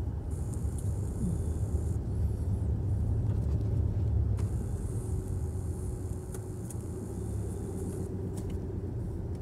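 Car moving at low speed, heard from inside the cabin: a steady low rumble of engine and road noise.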